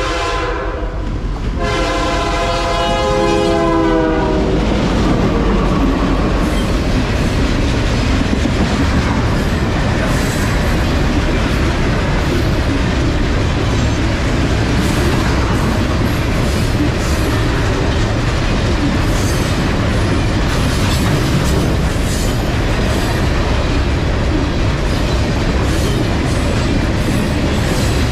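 A CPKC freight's diesel locomotives sound two horn blasts, a short one and then a longer one that dips slightly in pitch, as they reach the road crossing. Then a long string of Herzog ballast cars rolls past with a steady rumble and the wheels clicking over the rail joints.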